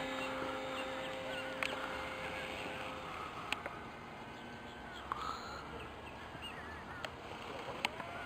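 RC model airplane engine droning steadily in the distance, fading out about three seconds in, then outdoor ambience with birds chirping and a few sharp clicks.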